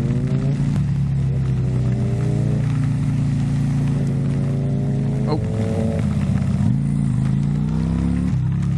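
Motorcycle engine running under way, its note climbing and dropping back several times.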